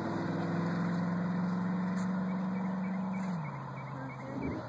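A 1993 Chevrolet Corvette's LT1 V8 running steadily under throttle as the car drives away along the track. Its note drops a step in pitch about three and a half seconds in and grows a little quieter.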